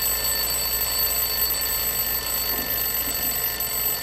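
Alarm clock ringing: one steady, unbroken ring with piercing high tones over a harsh rattle.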